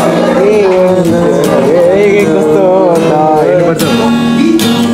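Acoustic guitar strummed, with a pencil strapped across the neck as a makeshift capo, while a young man sings a wavering melody over it.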